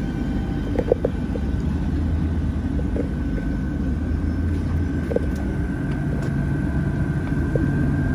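Sydney Trains C set double-deck electric train standing at the platform with its doors open: a steady low hum and rumble from the idling train, with a thin steady high whine and a few faint clicks.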